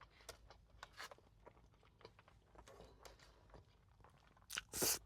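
Close-up chewing and crunching of fast food, with many small wet clicks and crackles from the mouth. Near the end come two louder, short bursts of noise.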